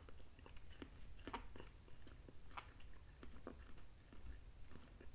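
Faint close-up chewing of a soft beef meatball: irregular, quiet wet mouth clicks.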